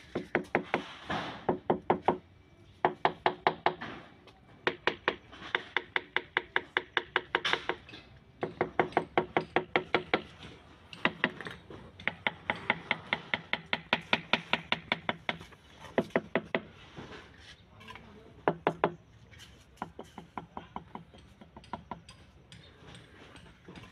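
Quick runs of light taps, several a second with short pauses between runs, as the butt of a wooden hammer handle knocks on a ceramic tile to bed it into fresh mortar. The taps grow sparser near the end.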